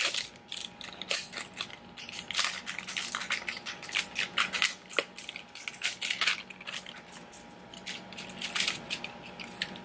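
Plastic shrink-wrap being peeled and pulled off an eyeshadow palette and its box, crinkling in many irregular crackles.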